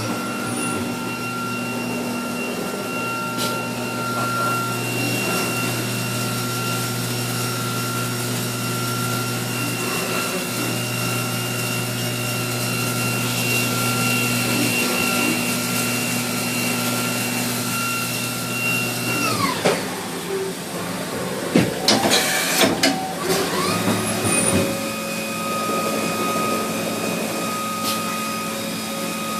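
Mazak Nexus 410A vertical machining center running, its spindle giving a steady whine. About two-thirds of the way through the whine winds down, a few sharp clanks follow, and the spindle spins back up to a slightly lower steady pitch.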